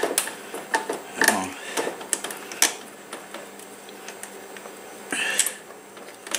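Small metal clicks and taps of fingers working a nut off the threaded throttle-cable end at a scooter carburetor's throttle bracket, with a short scraping rustle near the end.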